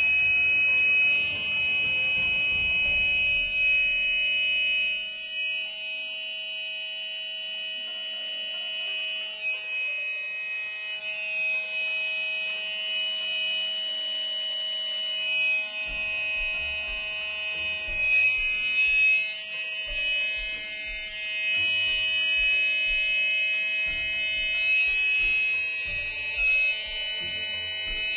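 Cheap plug-in car tyre air compressor running with a steady buzzing whine, its hose on the tyre. The owner finds it puts no air into the tyre at all. Some low, irregular bumps join in from about halfway.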